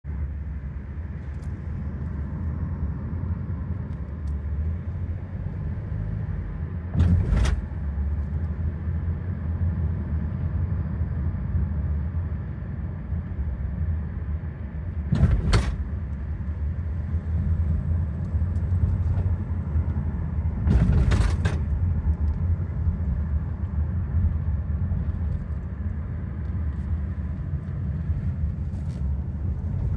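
A car's cabin with a steady low road rumble, broken by three short jolts as the car crosses speed bumps, the later two each a quick double thump.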